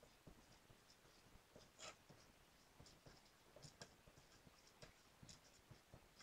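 Faint pencil writing on paper: short, irregular scratching strokes as letters are written out.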